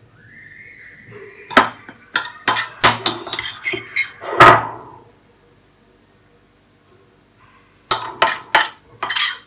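A metal spoon clinking and scraping against dishes while rice stuffing is spooned into a raw chicken: a quick run of sharp clinks over about three seconds, then a few more near the end.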